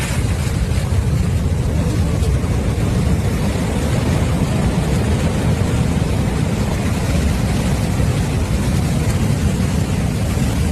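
Steady, loud rushing of a surge of meltwater and broken ice released by a collapsing ice dam, a deep continuous rumble with no breaks.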